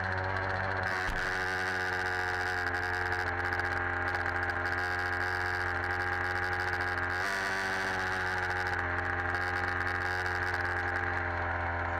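Two-stroke gas engine of a 1/5-scale HPI Baja 5B RC buggy idling steadily after dropping back from a rev, with small changes in its note about a second in and again about seven seconds in.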